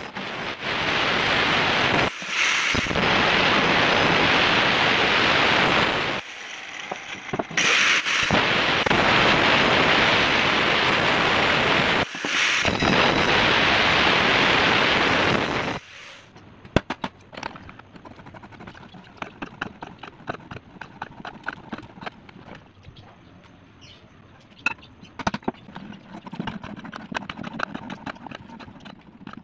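Angle grinder with a cut-off disc cutting through the steel bushing tube left long on a welded swing arm, in four long passes with short breaks about 2, 7 and 12 seconds in, stopping about 16 seconds in. After that come quieter, irregular metal clicks and scrapes of hand work on the part.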